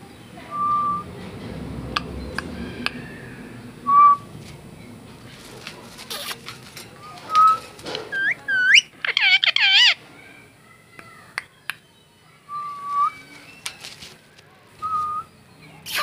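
Indian ringneck parakeet whistling: short level whistled notes every few seconds, and a quick run of rising whistles about halfway through, with scattered sharp clicks.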